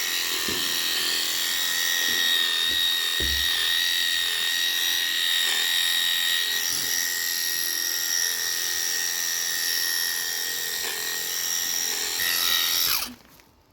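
Electric sheep clippers buzzing steadily as they trim soiled wool from a lamb's rear end (dagging). The motor stops abruptly near the end.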